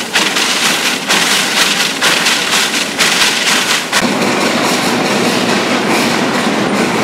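Steam train running, heard from on board: sharp strokes about once a second for the first few seconds, then a steady, denser noise without distinct strokes from about four seconds in.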